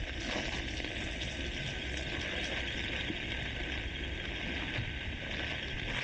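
Heavy rain pouring onto wet pavement and road in a steady hiss, with storm wind buffeting the microphone in a low rumble.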